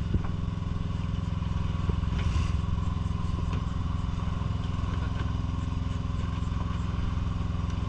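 Fishing boat's onboard engine running at a steady, even drone, with a few light knocks on deck.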